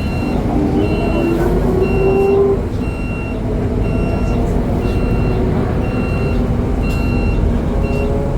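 City bus interior: engine and road rumble with the engine pitch rising twice as the bus pulls away, while a short high electronic beep from the bus repeats about once a second.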